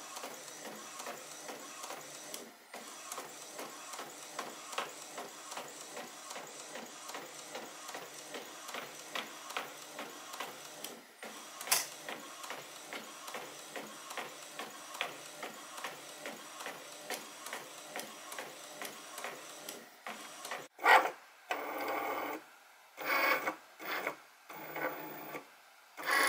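Epson EcoTank ET-2821 inkjet printer printing a full sheet: the print head shuttles back and forth in a steady rhythm of passes with light regular ticks as the paper feeds through. Near the end the pattern changes to louder, stop-start mechanical sounds.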